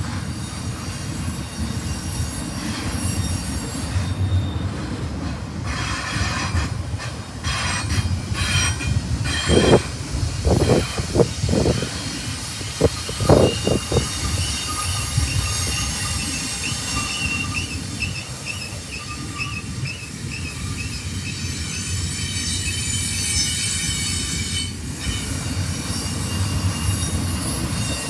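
Double-stack container well cars rolling past on the rails, a steady rumble and clatter of steel wheels. A cluster of louder knocks comes about ten to fourteen seconds in, and a thin wheel squeal is heard after it.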